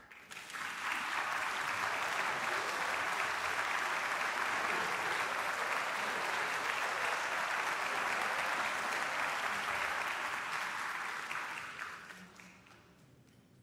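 Concert-hall audience applauding steadily, welcoming the piano soloist onto the stage, then dying away over the last couple of seconds.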